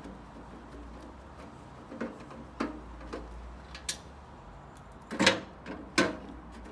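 Scattered sharp knocks and clinks of hand tools and metal parts as a microwave oven is dismantled by hand, about half a dozen in all, the loudest two a little after five seconds and at six seconds.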